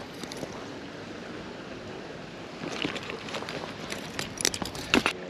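Steady rush of a shallow creek flowing, with a few short clicks and rattles from handling the catch about three seconds in and again near the end.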